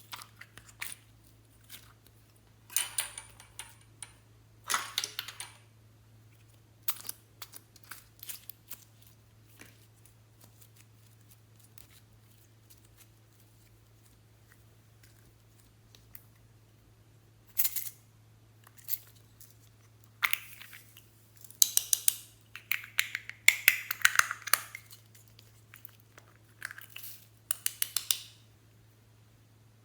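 Glossy slime being pressed, stretched and mixed by hand: irregular bursts of sticky clicking and popping, busiest in the last third.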